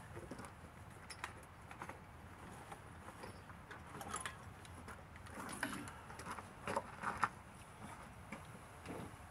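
Scattered clinks, rattles and knocks from hands-on work around an engine hanging from a chain hoist, densest a little past the middle, over a low steady background rumble.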